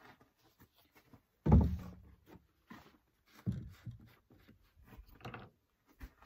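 A plastic gas can set down on a pickup tailgate with a loud thunk about one and a half seconds in, followed by smaller knocks and clicks as a plastic oil jug is picked up and its cap unscrewed.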